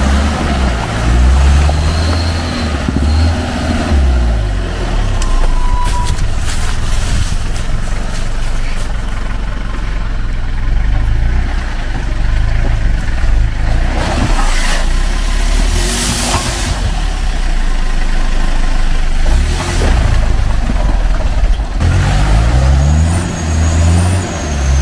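UAZ off-roader's engine revving up and down again and again while stuck in deep mud, its big tractor-tread tyres spinning and churning through mud and water, with several short hissing bursts in the middle.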